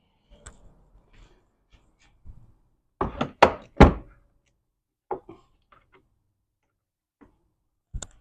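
Knocks and clicks of metal transmission parts being handled during gearbox disassembly: three loud knocks in quick succession about three seconds in, then a lighter one and a few small clicks.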